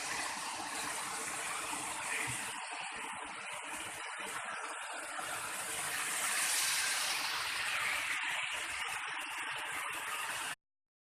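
Steady rushing hiss of a waterfall running with a small, low flow of water. The sound drops out to silence for about half a second near the end.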